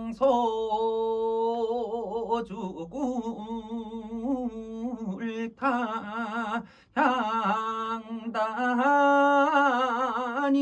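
A man singing a Korean Gyeonggi japga unaccompanied: long held notes with a wide, wavering vibrato, broken by short breaths. Only a few words are sung.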